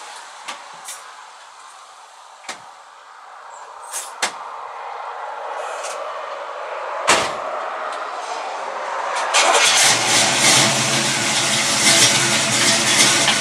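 A few light clicks and knocks, then a louder thump about halfway through. In the last few seconds the 1977 Chevrolet Camaro's engine starts and runs steadily through its new exhaust.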